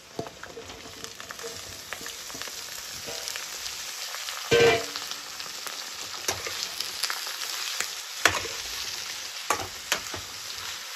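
Chopped ridge gourd and brinjal sizzling as they go into hot oil in an aluminium kadhai, with the metal spoon knocking and scraping against the pan. One loud clatter about four and a half seconds in.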